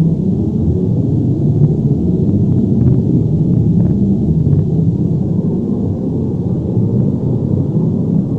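Steady, loud, deep rumble of an earthquake or avalanche sound effect, with a few faint crackles over it a couple of seconds in.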